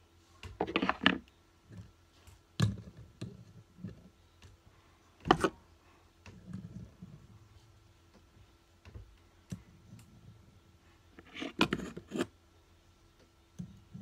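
Metal fidget spinners clicking and clattering against one another as they are handled and stacked into a tower: a short clatter about half a second in, single clicks around 3 s and a sharp one a little after 5 s, and a longer run of clatter near the end.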